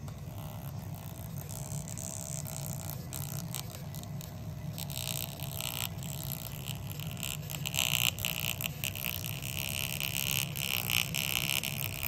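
Portable thermal printer of a Testo 320 combustion analyzer printing a test ticket: a buzzy whirring of the print mechanism as the paper feeds, in quick stuttering steps, louder from about five seconds in. A steady low hum runs underneath.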